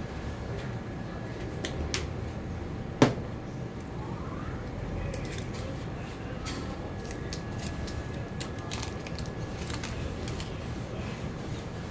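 Sharp click about three seconds in, then a scattered run of small clicks and taps in a kitchen, over a steady low hum as a pan of ground pork and vegetables sits on the stove.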